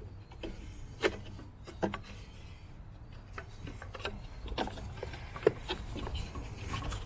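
Scattered light clicks and knocks of hands and tools on the accessory belt and pulley area of a car engine, over a low steady rumble.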